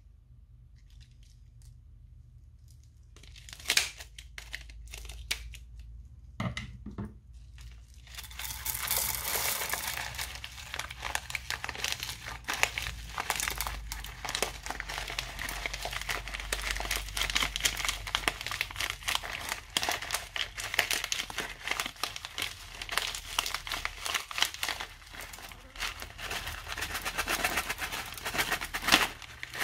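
Clear plastic piping bag crinkling as it is squeezed and kneaded by hand, pushing out beads and confetti. A few scattered clicks come first, then the crinkling runs dense and continuous from about a quarter of the way in.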